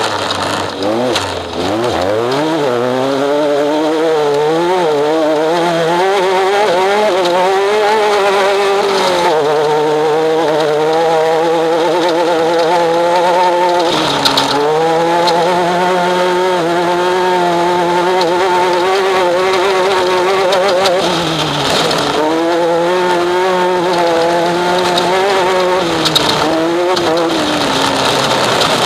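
Off-road race vehicle's engine at high revs, heard onboard: its pitch climbs and wavers over the first several seconds, then holds nearly steady with brief dips about 9, 14, 22 and 27 seconds in. A steady hiss runs underneath.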